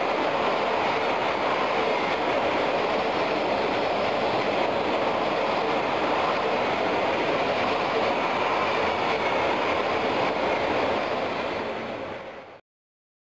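Freight train's container wagons rolling past at speed, a steady rumble and rush of steel wheels on the rails. It fades out near the end and then cuts off abruptly.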